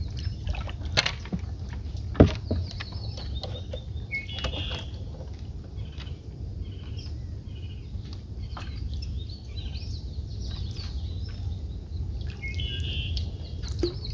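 Birds chirping in short bursts, twice, over a steady low rumble, with scattered sharp clicks and knocks; the loudest knock comes about two seconds in.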